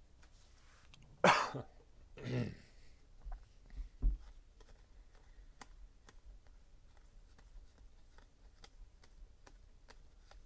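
A person coughs sharply about a second in, then clears their throat. After that come faint ticks and taps of trading cards being handled and sorted.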